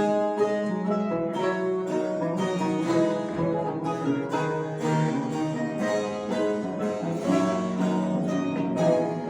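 Mandolin ensemble playing a classical-style piece: quick plucked notes over a sustained lower line.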